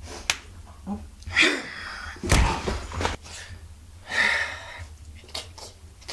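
A man's wordless grunts and forceful breaths in short separate bursts, with the loudest burst about two seconds in.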